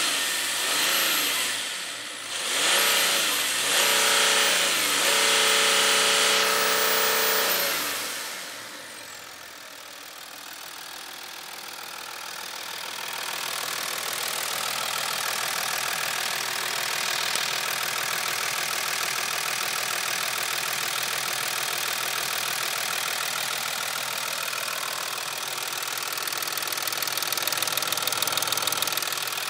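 Stage-2-tuned Audi A6 C6 3.0 TDI V6 turbodiesel being revved a few times, its pitch rising and falling, with a high turbo whistle following the revs. The last rev is held for a few seconds, and about eight seconds in the engine falls back to a steady idle.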